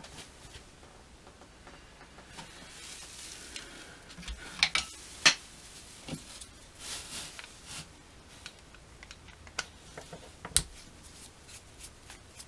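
Screwdriver working on a small metal chainsaw carburetor (Tillotson) during disassembly: scraping and handling noises with a few sharp metallic clicks and taps, a close pair around five seconds in and another about ten and a half seconds in.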